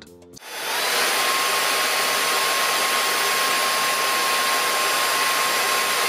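PRETTYCARE P1 Pro cordless vacuum's brushless 260 W motor starting about a third of a second in, then running steadily in its most powerful suction mode. A loud rush of air carries a thin high whine that rises briefly as the motor comes up to speed, then holds steady.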